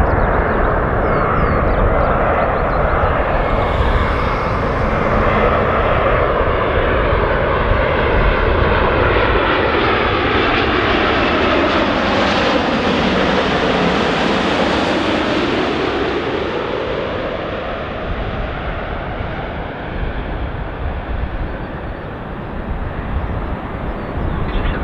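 Boeing 787-9 Dreamliner on approach, its GEnx-1B turbofans whining and rumbling as it passes close overhead about halfway through. As it goes over, a swirling sweep in the sound drops in pitch and rises again, and the noise then eases a little as the jet flies on toward the runway.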